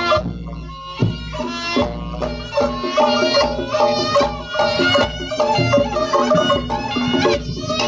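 Reog Ponorogo accompaniment music: a reedy wind-instrument melody over a steady pattern of hand-drum strikes.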